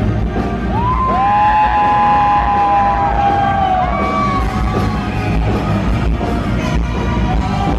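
Live rock band playing loudly, with electric guitar. A long held note slides up into place about a second in, and a shorter one follows near four seconds.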